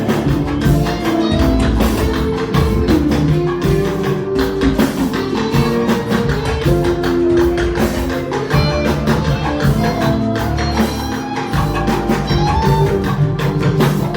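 Church band music with a steady, busy percussion beat over a bass and instrumental line.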